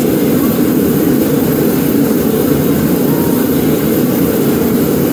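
A loud, steady low drone that holds unchanged throughout, with no distinct knocks or clicks.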